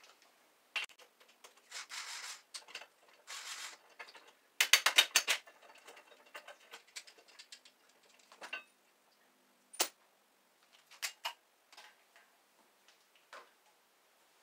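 Clicks, knocks and short scrapes of hand tools and metal parts being handled while a mini quad bike is taken apart, with a quick run of loud clicks about five seconds in.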